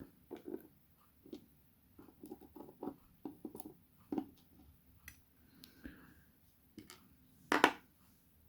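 Irregular small clicks and taps of the pins, springs and parts of a disassembled Assa 700 lock cylinder being handled, with one louder click near the end.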